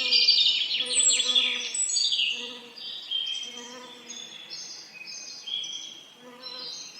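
Several songbirds singing at once, overlapping chirps and rapid trills, busiest in the first couple of seconds, with a low buzz of bees under them.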